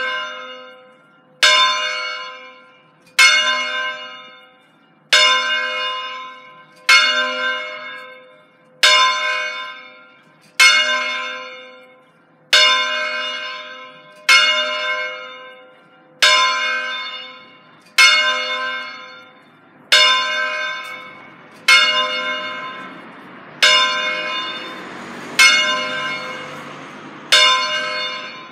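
The fifth bell of a five-bell Ambrosian-system church ring, swung in a distesa, strikes once about every two seconds. Each stroke rings out and fades before the next. A rushing noise swells underneath in the last few seconds.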